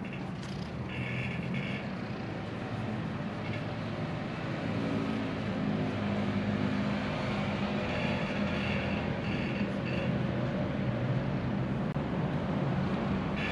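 Steady low hum of an engine running, growing a little louder after about four seconds, with short higher-pitched tones a few times.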